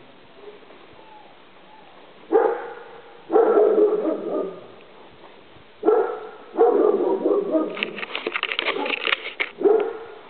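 A dog barking in repeated bouts of one to three seconds, starting about two seconds in; the longest and busiest bout comes in the second half.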